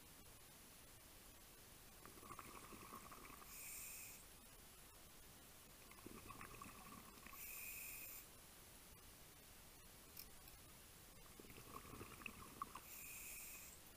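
Scuba diver breathing through a regulator underwater: three breaths about four to five seconds apart, each a bubbling gurgle followed by a short hiss.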